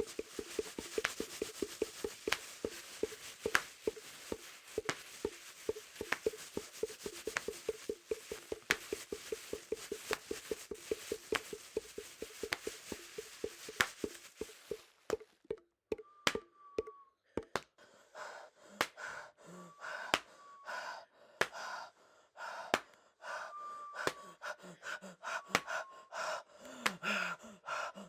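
Homemade horror Foley: fast, even panting with a sharp click about once a second. About halfway the panting stops, and irregular knocks with short ringing tones follow.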